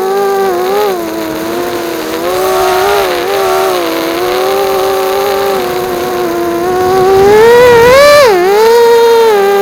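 Bee210 FPV racing quadcopter's motors and propellers whining, the pitch rising and falling with the throttle. It climbs to its highest about eight seconds in, then drops sharply.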